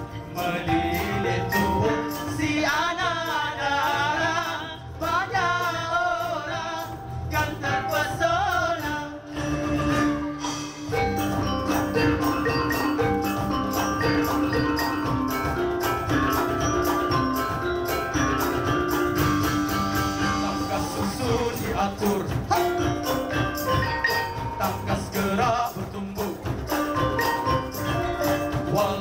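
Live Malay gamelan ensemble playing, kettle gongs and metallophones over hand drums, with electric guitar and keyboard in the band. A voice sings a wavering, ornamented melody for the first several seconds, then the instruments carry on with held tones over a steady beat.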